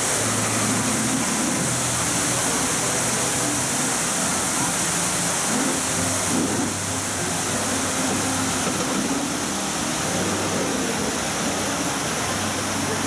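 Steady rush of water pouring down a cascade fountain wall, with a low hum coming and going underneath.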